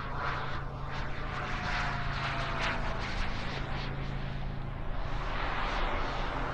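Turbine engine of a radio-controlled model jet, heard as a jet whoosh that swells and fades several times as the plane flies past.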